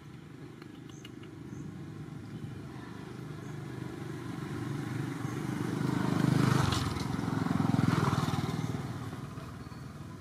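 A motor vehicle passing unseen, its engine sound growing louder to a peak about six to eight seconds in, with two swells, then fading.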